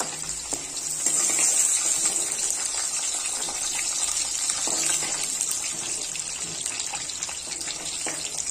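Cubed potatoes deep-frying in hot oil in a karahi, a steady sizzle that grows louder about a second in. The potatoes are nearly done, turned reddish-brown, and are being stirred and lifted out with a metal slotted spoon.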